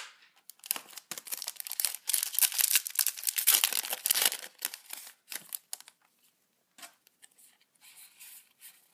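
A Yu-Gi-Oh booster pack's foil wrapper being torn open and crinkled, a dense crackling for about four seconds from roughly a second in. After that come only faint scattered rustles as the cards are handled.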